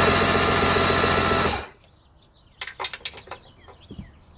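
Electric starter cranking a 1982 Mercury 115 hp inline-six outboard for under two seconds: it spins up, holds a steady cranking note, then stops. The engine is being turned over for a spark check, and cylinder #6 shows no spark.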